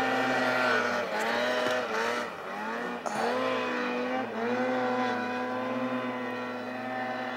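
2015 Ski-Doo Summit T3 174 snowmobile engine running hard as the sled climbs a steep powder hill. Its pitch dips and climbs back again about once a second as the throttle is worked, then holds steadier in the second half.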